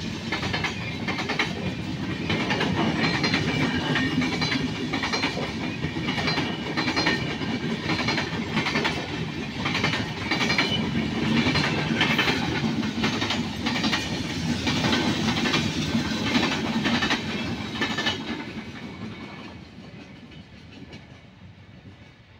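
A freight train passing at speed, its wagon wheels clattering over the rail joints in a quick repeated rhythm. The clatter dies away over the last few seconds as the train moves off.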